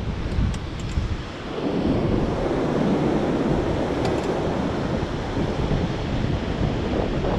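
Steady wind rushing and buffeting over the microphone of a camera riding under a power kite, with a few faint ticks near the start and about four seconds in.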